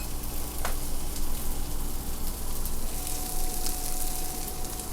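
Sliced onions with garlic and ginger sizzling in butter in a hot pan, with one light tap of a utensil about half a second in.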